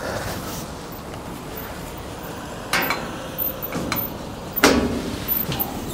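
Metal clanks and knocks from a steel ladder and a hinged handrail on top of a fuel tank trailer as someone climbs up and begins raising the rail. There are a few sharp knocks, the clearest about three seconds in and a little before five seconds.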